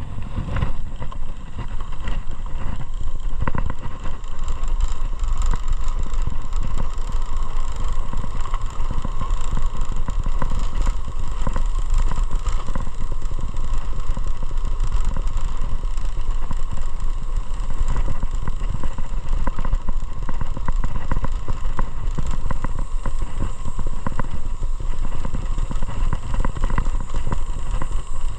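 Motorcycle engine running steadily under a continuous rush of noise, with no pauses or changes.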